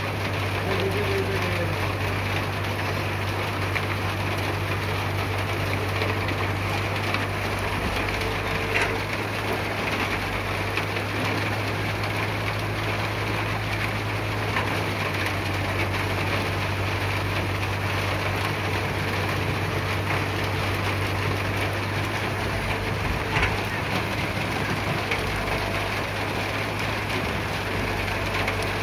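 Caterpillar E120B excavator's diesel engine running steadily under a constant hiss, with a couple of light knocks from the machine at work.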